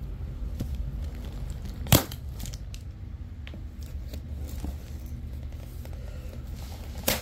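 Cardboard shipping box being opened by hand with a folding knife: packing material crinkling and tearing, with scattered small clicks, a sharp snap about two seconds in and another near the end.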